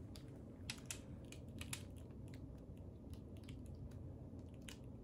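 Faint, irregular clicks and soft crackles of a painting canvas being handled and tilted, over a low steady hum.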